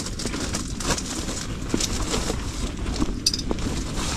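Soft rustling and small clicks of hands and jacket sleeves handling a small white bream while unhooking a mormyshka jig from its mouth, over a steady low rumble.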